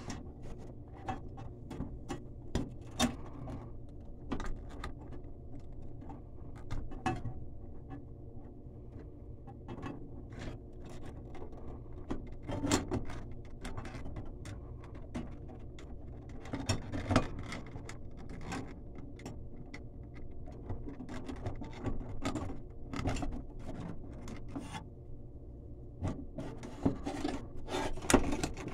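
Hands handling the wiring and sheet-metal ballast plate inside a recessed light fixture: irregular clicks, taps and rubbing of wires and metal, over a steady hum.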